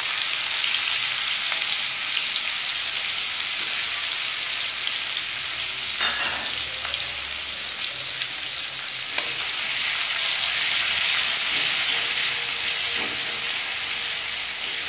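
Chopped onion and green chilies sizzling steadily in hot oil in a steel wok, just added and starting to fry, with a spatula scraping against the pan a few times.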